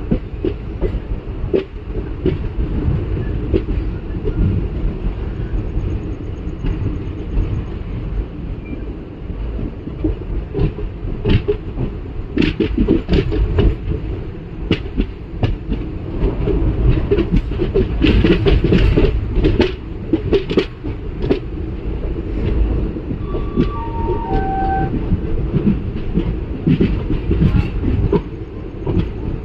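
Train running along the track at a station, a steady rumble with the wheels clattering over rail joints, busiest in the middle. About two-thirds of the way through, a short three-note falling chime sounds, like a station announcement chime.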